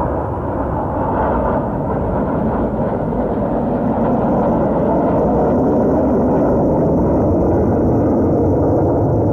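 BAE Hawk T1 jets flying past, a steady jet noise that builds over the first few seconds and then holds.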